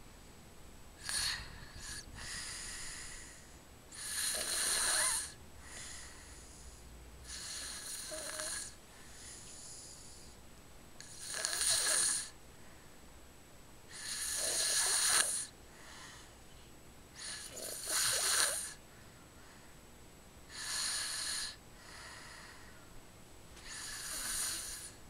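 Snoring: about eight breathy snores a few seconds apart, some much louder than others.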